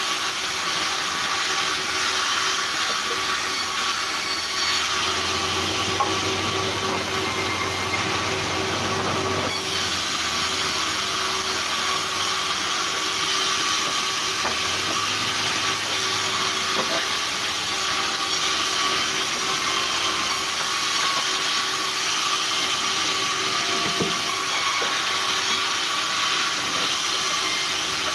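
Large vertical band sawmill running and ripping logs: a continuous hiss of the blade cutting wood over a constant tone from the machine.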